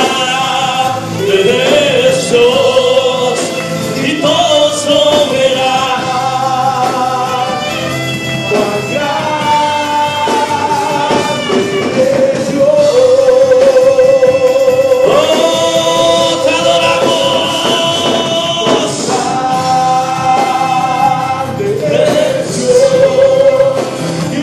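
Gospel worship music: voices singing a melodic song with long held notes over instrumental accompaniment.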